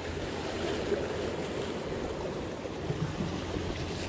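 Steady rushing of surf breaking on a rocky shore.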